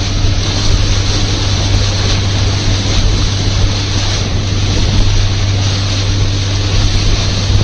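Longtail boat's engine running at a steady pace, a constant low drone, with wind and water rushing past the moving boat.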